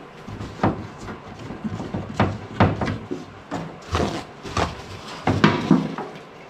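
A string of irregular knocks and clunks, about a dozen over several seconds, as of objects being handled and set down.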